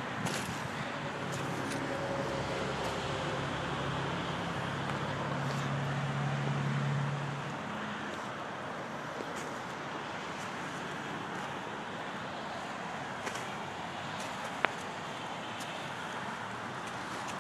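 Outdoor traffic noise with a vehicle engine's low hum that builds over the first several seconds and fades out about seven seconds in. A single sharp click comes near the end.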